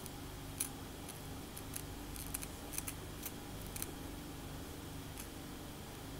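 Long acrylic fingernails scratching and picking at a cornrowed scalp: irregular crisp, dry scratches and clicks, most of them in the first few seconds, over a low steady hum.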